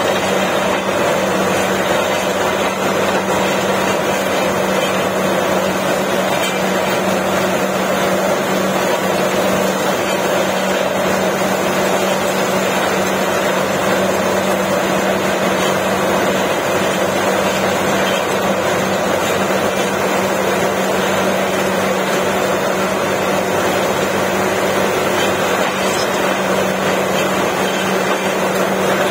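Truck-mounted borewell drilling rig running steadily while drilling, its compressed air blowing muddy water out of the borehole: a loud, continuous machine noise with a steady low hum.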